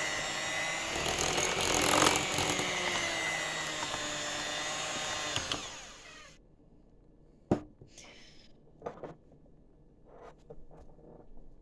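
Hand-held electric mixer running steadily, its beaters whipping cake batter in a bowl, then switched off about five and a half seconds in and winding down. After it, a few sharp knocks and clicks.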